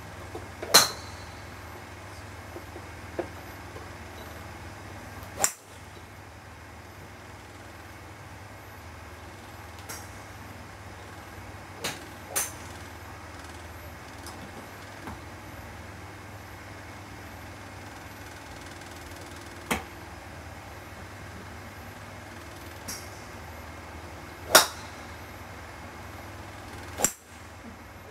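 TaylorMade SLDR 5-wood striking golf balls off a range mat: about five sharp cracks at uneven intervals, the loudest about a second in and another near the end, with fainter clicks between. A steady low hum runs underneath.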